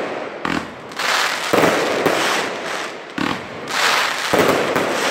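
Aerial fireworks shells bursting overhead: a run of bangs, about six in five seconds, each trailing off.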